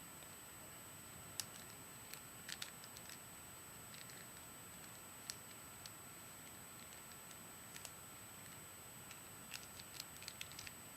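Faint, scattered plastic clicks of a Rubik's Cube's layers being turned by hand, in small clusters a few seconds apart, over a steady background hiss.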